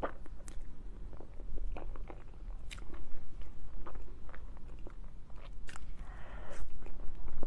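A person eating soft cake close to the microphone: chewing with scattered small mouth clicks and smacks.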